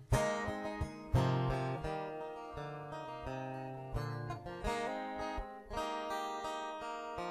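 Acoustic guitar playing the closing chords of a country song, a few strummed strokes followed by chords left to ring out.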